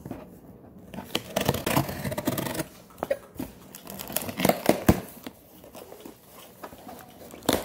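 Packing tape being slit and torn off a cardboard shipping box, with the cardboard flaps crinkling and scraping as they are pulled open. The tearing comes in bursts, loudest about a second in and again around the middle.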